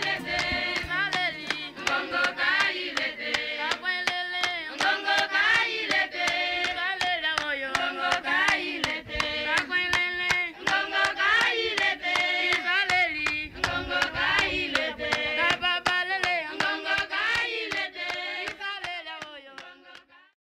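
A group of voices singing with steady rhythmic hand clapping, fading out near the end.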